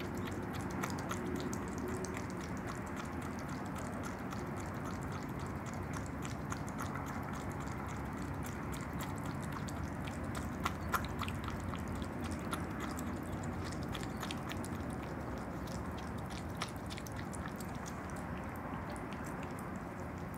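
Opossum eating yogurt: a dense run of small wet clicks and smacks from lapping and chewing, thinning out near the end.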